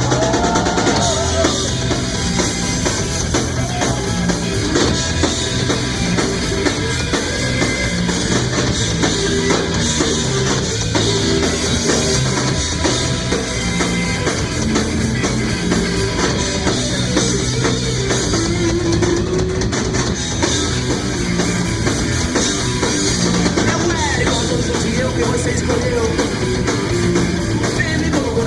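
Live rock band playing an instrumental stretch: drum kit driving a steady beat, under electric bass and guitar.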